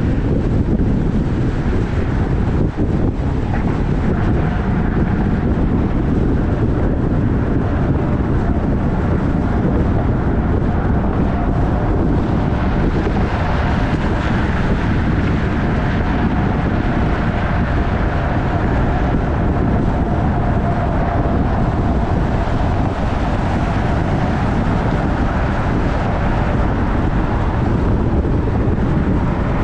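Steady low rumble of a moving vehicle, with wind buffeting the microphone; a faint steady tone joins in around the middle.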